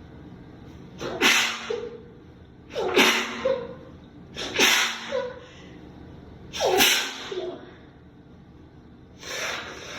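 A person sneezing again and again in a fit: four loud sneezes about every one and a half to two seconds, then a weaker one near the end. The sneezer blames the fit on a sensitivity to a newly bought scented soap.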